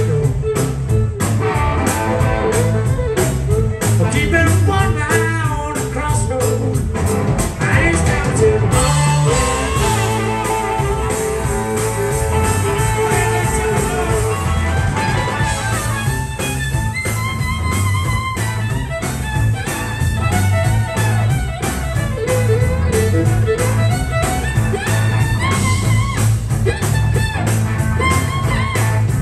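Live blues band playing with a steady drum beat: a fiddle bows the lead line over electric guitar and drums.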